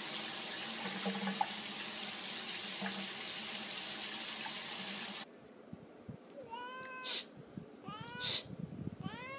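A cat meowing faintly over a steady rushing hiss like a running tap, which cuts off suddenly about five seconds in. Then a cat gives repeated calls that rise in pitch, each followed by a short hissy burst, about one every second and a half.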